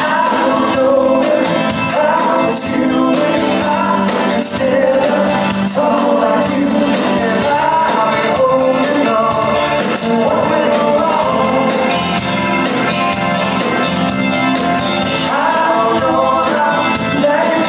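Blues-rock band playing live in a concert hall, with singing.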